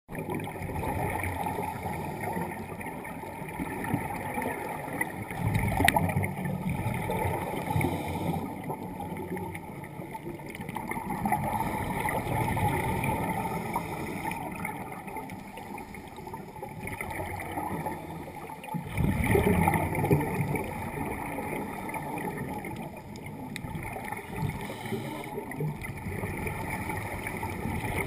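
Scuba divers' exhaled air bubbling out of their regulators, heard underwater through the camera housing: a gurgling rush of bubbles that swells with each breath out and fades between, every several seconds.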